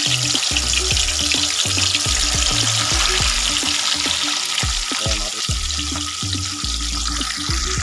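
Hot oil sizzling and crackling steadily around whole fish deep-frying in a wok. Background music with a pulsing bass line plays underneath.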